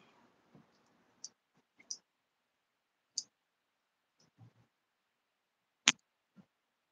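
Quiet handling noise: about seven small, separate clicks and light knocks, the sharpest one near the end, as a handheld phone and a drinking glass are moved about.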